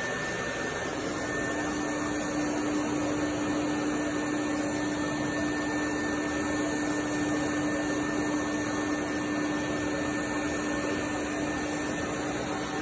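Surgical smoke evacuator drawing air through its hose nozzle held at the skin, a steady rushing suction noise. A steady low hum joins about a second in.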